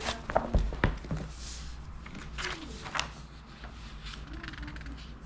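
Paper pages of a thick workbook being turned and handled, with rustles and a few soft knocks in the first second, then lighter page rustling.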